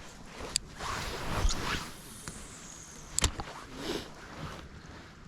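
Handling noise: rustling and swishing, with two sharp clicks, a faint one about half a second in and a louder one about three seconds in.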